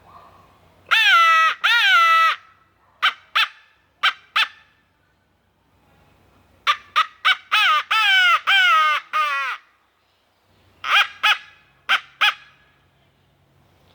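Harrison crow call by Hooks Custom Calls, a mouth-blown reed crow call, sounding a series of crow caws. It opens with two long drawn-out caws, then two pairs of short caws, a run of about seven caws near the middle, and four quick short caws near the end.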